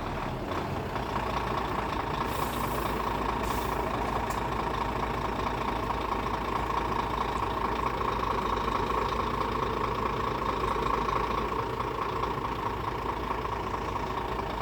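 Heavy gravel truck's engine running steadily, with a constant whine over the engine noise.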